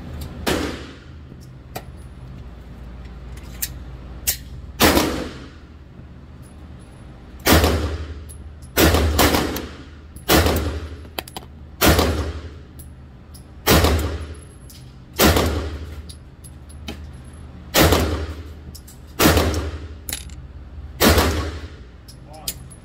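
Glock 9mm pistol fired in slow succession, about a dozen shots spaced roughly one to one and a half seconds apart. Each shot is a sharp crack with an echoing tail off the walls of an indoor range. A few fainter sharp cracks fall between them.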